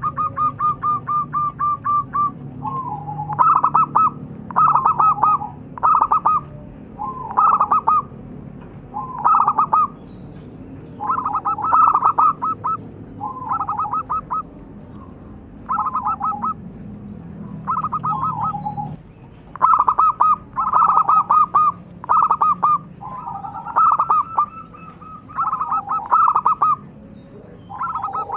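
Zebra dove (perkutut) singing its cooing song: a quick run of even staccato notes at the start, then a long series of short rolling phrases, roughly one a second. A low background hum sits underneath and stops about two-thirds of the way through.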